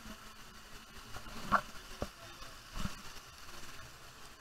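Wading through shallow pool water: a few irregular splashing knocks over a steady hiss of running water.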